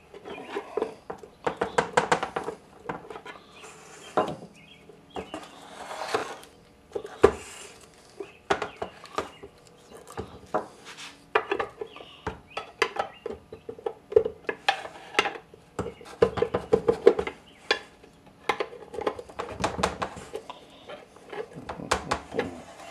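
Metal parts of an ATV transmission being handled during disassembly: irregular clinks, taps and scrapes of bolts and the shaft against the metal gearbox case.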